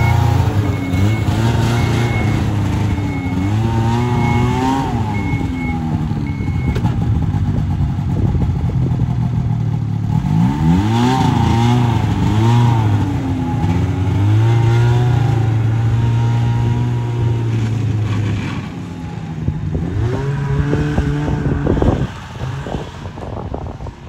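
Ski-Doo Grand Touring snowmobile's Rotax 583 two-stroke twin engine revving up and easing off several times as it pulls away and rides off, growing fainter near the end.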